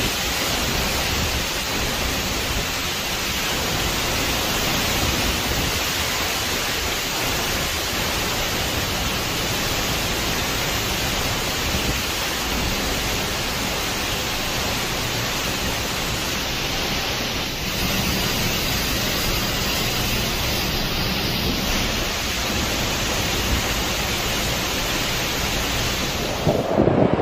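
Hurricane-force wind with torrential rain: a steady, dense rush of noise that does not let up.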